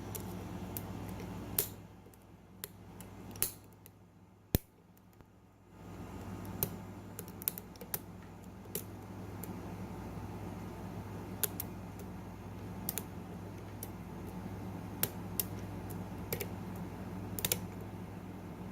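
Lock pick and tension wrench working the pins of a custom-pinned lock: irregular small metallic clicks and taps, one sharper click near the middle, over a steady low hum.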